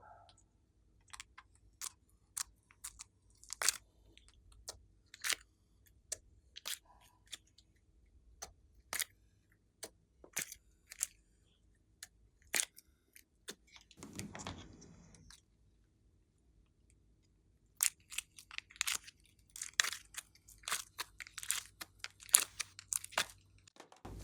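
Glossy slime being pressed and squeezed by hand, giving sharp, separate clicks as trapped air bubbles pop. The clicks come about one or two a second at first, with a short squelching rustle partway through, and grow denser near the end.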